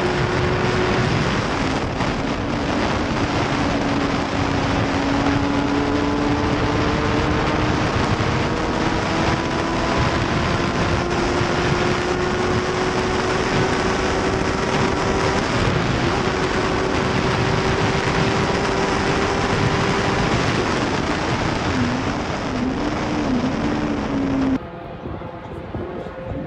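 In-car sound of an F1000 race car's 1000 cc motorcycle-derived engine pulling hard at high revs under heavy wind and road noise. The pitch drops at a gearshift about a second in, then climbs slowly and steadily down a long straight, and wavers briefly near the end. About 24 seconds in it cuts off abruptly to quieter sound with wind on the microphone.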